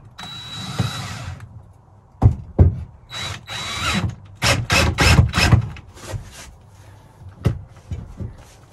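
DeWalt cordless drill drilling down through a bench vise's mounting hole into wood. The motor runs twice for about a second each time with a steady high whine, then comes a quick series of short trigger bursts. A few sharp knocks fall between the runs.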